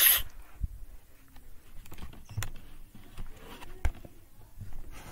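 A shushing hiss cuts off right at the start. Then come faint scattered clicks and a few soft knocks from a handheld phone camera being moved about.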